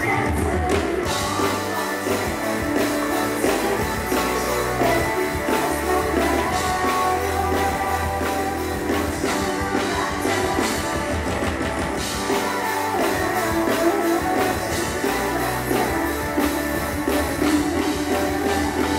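Pop music played loud through a stage sound system: a steady drum beat, guitar and singing.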